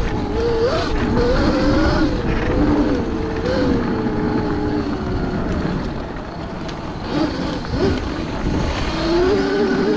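Whine of an electric dirt bike's 72 V motor (a Kawasaki KX 85 converted to electric), rising and falling in pitch with the throttle over a steady rush of wind and rolling noise. The whine fades about halfway through and climbs again near the end.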